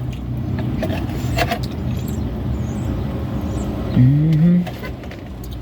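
Steady low rumble of a motor vehicle's engine, with a short rising hum from a person's voice about four seconds in.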